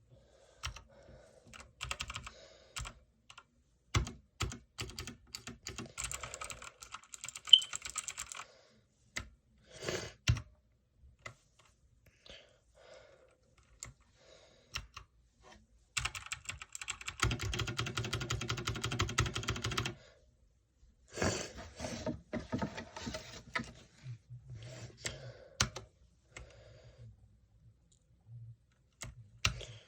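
Typing on a TMKB T68SE mechanical keyboard: bursts of key clicks separated by short pauses, with a fast, dense run of keystrokes about halfway through.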